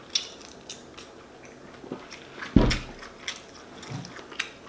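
Close-up chewing of a shrimp po'boy sandwich: wet mouth clicks and lip smacks scattered through, with one louder low thump about halfway through.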